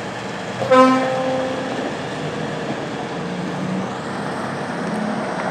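Heavy-haul truck running steadily, with one short horn toot about a second in.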